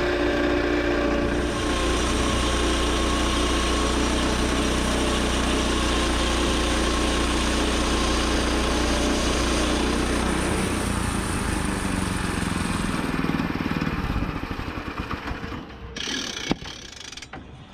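Gas engine of a Woodland Mills 122 portable bandsaw mill running steadily, with the band blade sawing through a cherry log. Near the end the engine is shut down and runs down unevenly, with one sharp pop, a backfire, as it stops.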